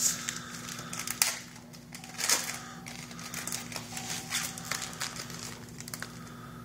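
Trading card pack wrappers crinkling and cards being handled and flicked through, in short irregular rustles, with a faint steady hum underneath.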